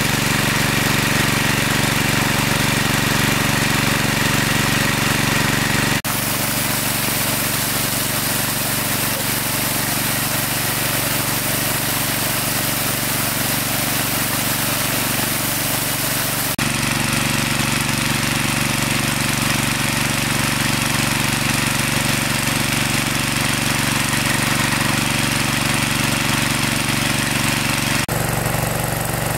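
A small engine running steadily. Its pitch and tone change abruptly three times, as if cut between takes.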